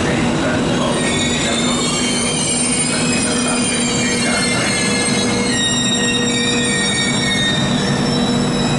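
Trenitalia Intercity passenger coaches rolling along the station track, their wheels squealing in several high, slightly wavering tones over a steady low hum.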